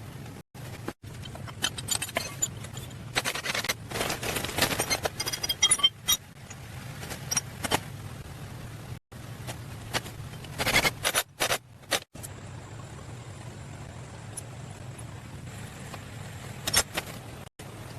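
Short clicks, clinks and scrapes over a steady low hum, broken by several abrupt cuts.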